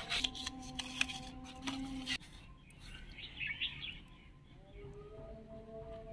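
Paper crackling and tearing with a few sharp clicks in the first two seconds, then birds chirping.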